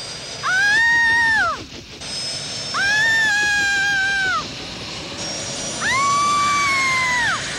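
A woman screaming three times, each long high scream lasting about a second and a half, over a steady high hissing whine.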